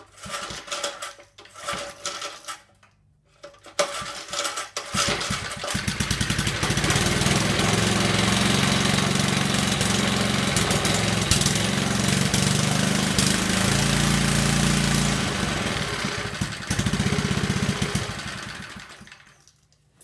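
Small Briggs & Stratton 2 hp horizontal-shaft engine with points ignition, pulled on its recoil starter. A few short pulls, then it catches about four seconds in and runs loud and steady. It dips briefly near the end, picks up again, then dies away as the homemade ignition kill switch is thrown.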